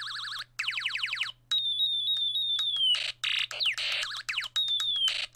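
Electronic space-battle sound effects from a snap-together electronics kit's small speaker, set off by its push button: a fast warbling siren, then a run of quick downward laser-like zaps, a high whistle tone that steps and glides downward, and short bursts of hiss with more falling zaps.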